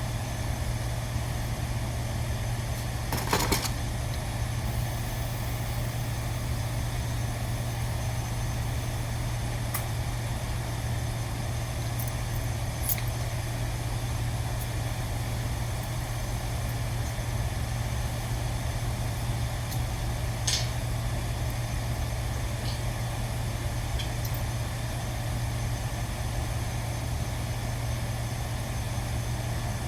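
A steady low machinery hum, with a sharp knock about three and a half seconds in and another about twenty seconds in, and a few faint clicks.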